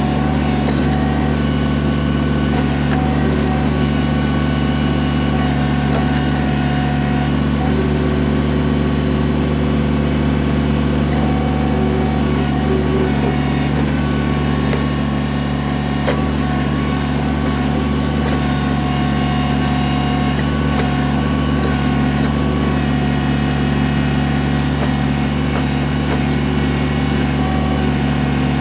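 Kubota BX23S compact tractor's three-cylinder diesel engine running steadily at raised throttle while it powers the backhoe.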